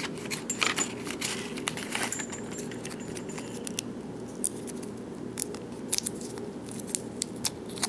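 Scattered light clicks and taps of small metal pieces being handled: a padlock and lock-picking tools, over a steady low hum.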